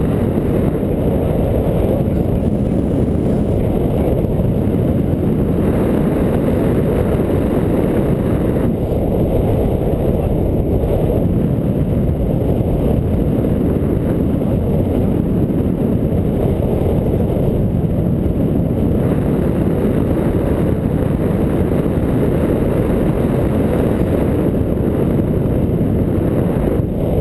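Wind rushing over a camera microphone during paraglider flight: a constant, loud, low rumbling noise with nothing else standing out.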